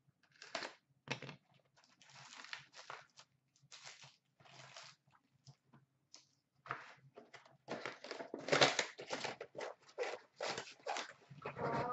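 A cardboard trading-card hobby box being opened and its wrapped packs lifted out: irregular tearing, rustling and scraping of card and wrappers, busier and louder in the second half.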